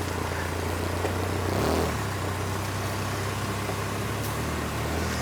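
Car engine and exhaust running steadily as the car rolls slowly, a low even hum with a brief change in pitch about two seconds in.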